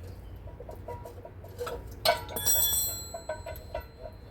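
Metal-on-metal clank about two seconds in that rings on like a bell for about a second, among scattered small clinks of tools and hardware.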